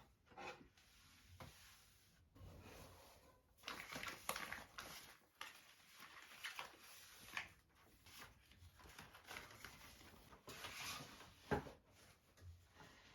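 Faint, irregular rustling and light taps, with one sharper tap near the end.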